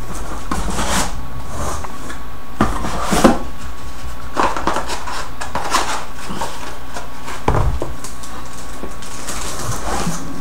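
Cardboard and paper packaging being handled and moved about: scattered rustles and a few light knocks over a steady background hum.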